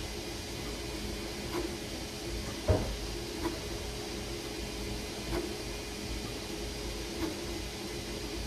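Creality Ender-3 V3 KE 3D printer running a print: a steady hum with short motor chirps about every two seconds, and one knock a little under three seconds in.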